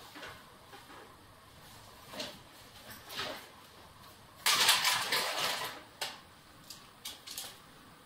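Clothes rustling as they are packed and smoothed into an open hard-shell suitcase, with a louder, longer rustle about halfway through, followed by a few light clicks and taps.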